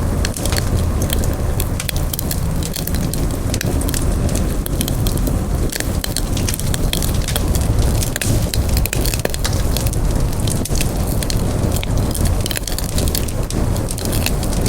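Wood campfire burning: a steady low rush of flames with frequent sharp, irregular crackles and pops from the burning wood.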